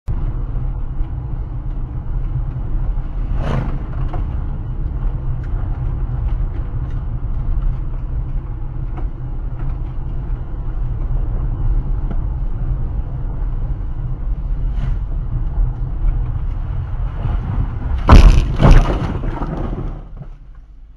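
Car driving on a gravel road, heard from inside the cabin: a steady rumble of tyres on loose gravel. Near the end come two loud crunching scrapes of gravel as the car brakes hard, and the rumble drops away as it slows almost to a stop.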